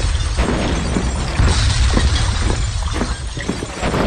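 Battle sound effects of gunfire and artillery: a continuous low rumble with many sharp cracks and crashes.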